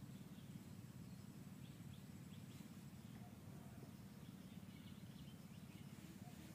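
Near silence: faint outdoor ambience with a low steady rumble and a few faint, short high chirps scattered through it.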